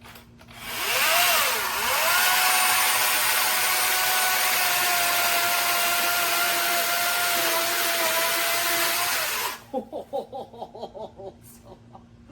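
ReliaRoads 16-inch brushless cordless electric chainsaw spinning up and cutting through a dead palm tree trunk: a steady high motor whine for about eight seconds that cuts off suddenly, followed by a run of short rising-and-falling pulses.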